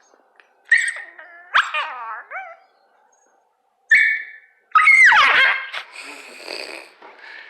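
Dachshund making a string of annoyed whining, yelping grumbles: about four high-pitched calls with wavering pitch, the longest and loudest about five seconds in, trailing off into a low grumble. It is the dog protesting at being poked.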